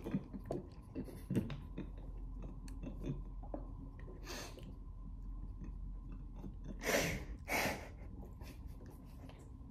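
Eating sounds at close range: chewing and spoons clicking against plastic ice cream cups. A short breathy burst about four seconds in and two stronger ones about seven seconds in, the sounds of stifled laughter.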